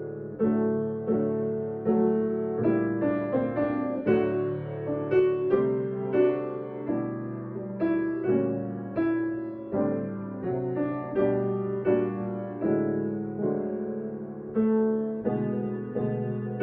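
Solo piano playing a slow, gentle piece, each note or chord struck and left to fade before the next.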